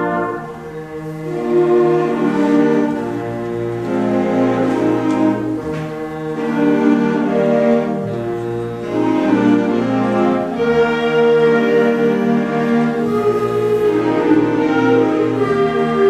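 Middle school concert band playing sustained chords in brass and woodwinds, dipping briefly soft about a second in and then swelling again.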